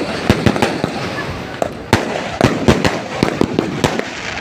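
Fireworks going off in a rapid, irregular run of bangs and crackles, with one louder bang about two seconds in.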